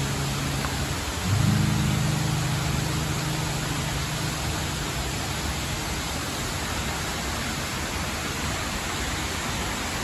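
Steady rushing of Shiraito Falls, many thin streams of water pouring over a wide cliff into a pool. A low held music chord sounds under it and fades out in the first few seconds.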